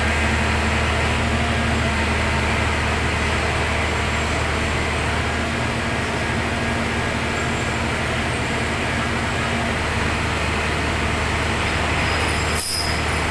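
Heavy diesel engine running steadily with a deep drone, which cuts out for a moment near the end.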